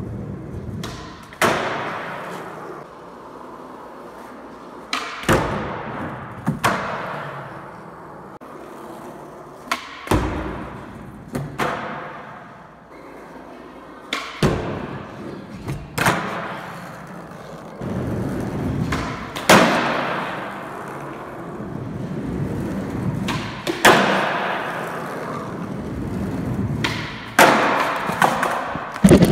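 Skateboard wheels rolling on a concrete floor, broken again and again by sharp nollie pops and the board and wheels slapping down on landings, each impact echoing in a large hall.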